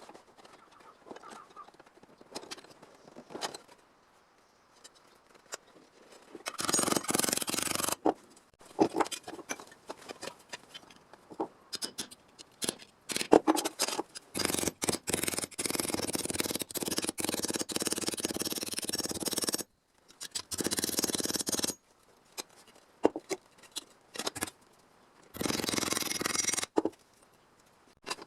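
A power tool working on car-body sheet metal, running in several bursts of a few seconds each that start and stop abruptly, with clicks and scrapes of metal being handled between them.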